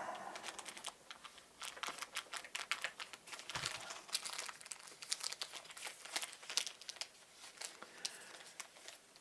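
Irregular light clicking and crinkling of small plastic parts being handled, with quick ticks coming in uneven runs.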